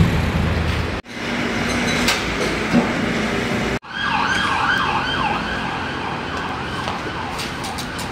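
A siren yelping, its pitch sweeping quickly up and down over and over, starting about four seconds in and slowly fading. Before it, mixed street and workshop noise with a couple of sharp knocks.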